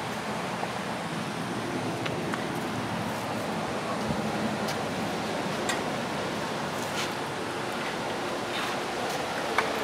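Steady rushing background noise with a few faint, light taps and clicks scattered through it.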